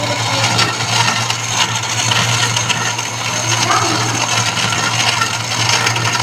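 Philips countertop blender running steadily, its motor humming as it blends a jug of drink.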